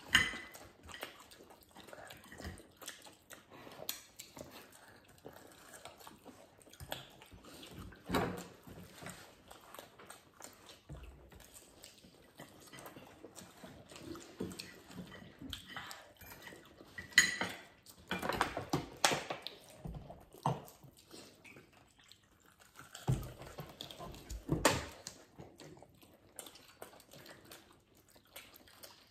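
Forks and cutlery clinking on plates, with people chewing breaded fried chicken, in scattered short sounds; louder clusters come about 8 s, 17–19 s and 23–25 s in.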